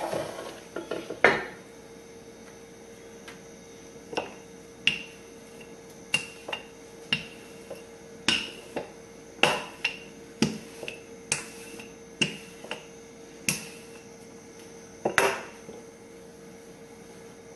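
Irregular sharp knocks and clicks of metal kitchen tools being handled during tortilla making, some with a short ring, over a faint steady hum.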